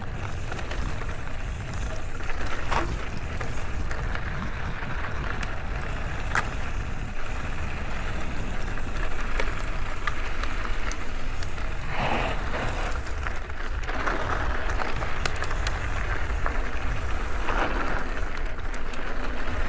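Mountain bike rolling over loose gravel and sand: steady tyre crunch and hiss with scattered clicks and rattles, over a low wind rumble on the microphone. The crunch grows louder in stretches about twelve seconds in and again later.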